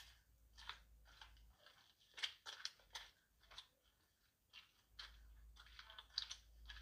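Near silence with faint, irregular crunching: footsteps scuffing on the gritty walkway of a limestone cave.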